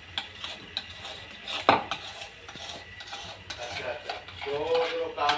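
A spoon stirring and scraping a mixture in a ceramic bowl, with light clinks against the bowl and one sharper clink a little under two seconds in.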